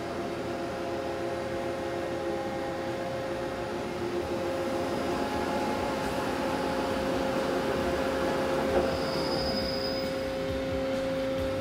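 Mori Seiki SL-65B CNC lathe running with its geared-head spindle turning the 21-inch three-jaw hydraulic chuck: a steady mechanical whine made of several held tones. A short click comes about nine seconds in.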